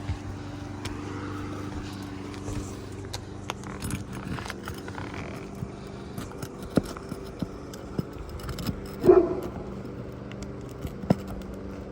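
Scattered clicks and taps of hand-tool work on an asphalt shingle over a steady low hum, with a dog barking once about nine seconds in.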